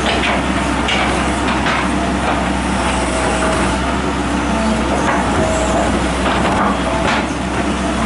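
John Deere tracked hydraulic excavator's diesel engine running steadily as it digs, with a few short knocks and scrapes of the bucket in the soil.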